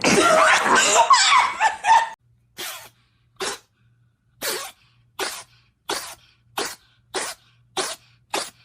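A cat sneezing in a rapid fit: about nine short, sharp sneezes, each less than a second apart. They follow about two seconds of louder, mixed, voice-like sound.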